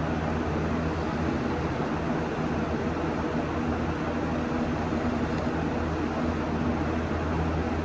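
A steady low hum over an even rush of noise, with no clear rise and fall of breathing.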